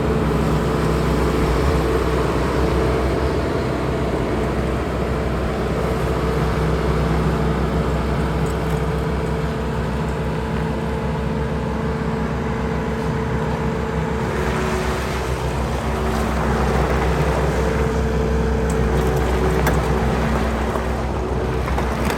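Bobcat T870 tracked skid steer's diesel engine running steadily; about fourteen seconds in the engine note shifts and the sound turns noisier.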